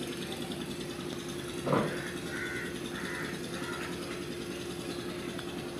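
Steady low mechanical hum with one held tone, like a fan or motor. A little under two seconds in comes one short, louder sound falling in pitch, then three faint short bird calls, crow-like caws.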